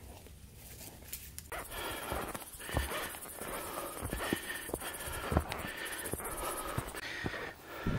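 A hiker's footsteps on a dirt mountain trail, a few slow soft thuds, over hard, panting breaths that start about a second and a half in.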